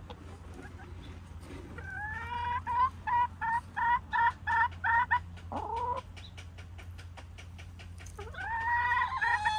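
Domestic hen calling: a rising note, then a run of about eight loud, evenly spaced clucks, roughly three a second. A short sliding squawk follows, and near the end comes another rising, drawn-out call.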